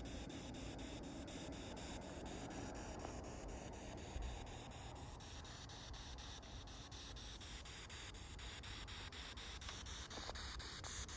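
Spirit box (ghost-box radio) sweeping through stations: a steady hiss of radio static, broken by even clicks about five times a second.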